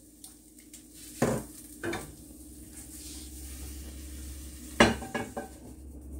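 A Princess House Vida Sana stainless steel pot and metal tongs clattering as fried chicken pieces are lifted off the stove and tipped onto a plate. Sharp knocks come about a second in, again near two seconds and twice around five seconds, over a faint sizzle.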